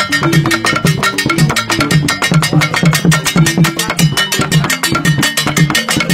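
Birifor funeral dance music: wooden xylophones (gyil) play fast, repeating low notes over drums and sharp percussion strikes in a steady, driving rhythm.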